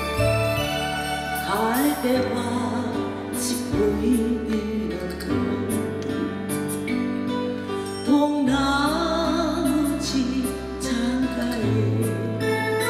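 Karaoke backing music: a melody line that bends and wavers in pitch over held chords and a steady bass.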